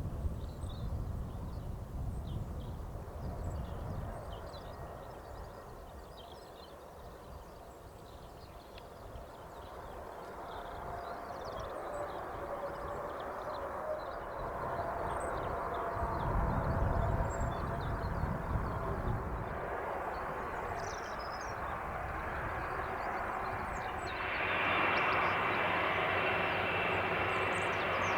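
Distant Boeing 747-400 freighter's jet engines: a hiss that slowly grows louder, then steps up near the end with a high steady whine. Birds chirp faintly in the background.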